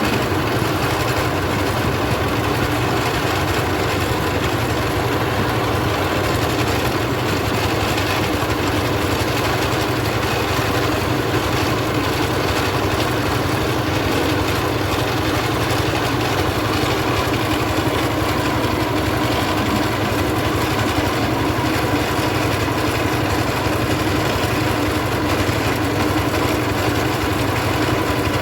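Mobile rice milling machine running steadily, its engine and milling machinery making a constant loud mechanical noise.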